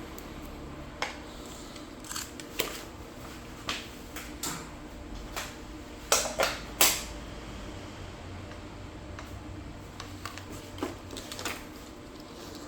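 Scattered sharp clicks and taps from hands working on an inkjet printer and its ink cartridges. The loudest are three clicks in quick succession about six to seven seconds in.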